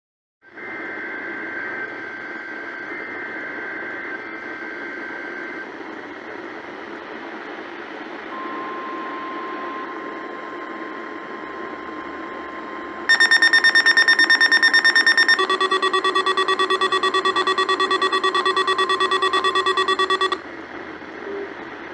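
NOAA Weather Radio test broadcast heard over a weather radio with steady static hiss: buzzy SAME data header bursts, then the steady 1050 Hz warning alarm tone starting about 8 seconds in. About 13 seconds in, the weather alert radios' built-in alarms set off a loud, rapid beeping, which changes to a lower-pitched beeping about two seconds later and cuts off suddenly near the end: the receivers triggered by the warning alarm tone.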